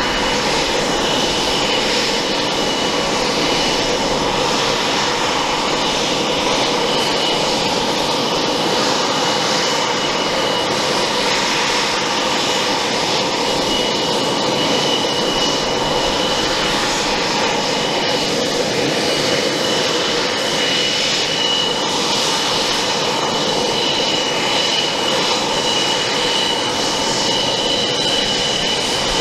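MiG-29 Fulcrum's twin RD-33 turbofan engines running at low power as the jet taxis: a steady jet rush with a thin high whine that fades and returns.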